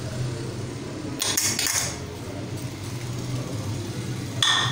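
Sliced onions tipped from a bowl into hot oil in a karahi and stirred with a metal ladle: a short noisy clatter and sizzle about a second in, and a ladle scrape on the pan near the end, over a steady low hum.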